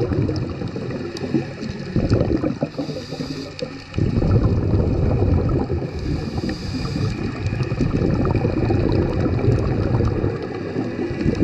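Underwater sound through a camera housing: low rushing and bubbling of water, with a diver's scuba breathing. A short hiss on each inhale comes twice, and a burst of exhaled bubbles follows.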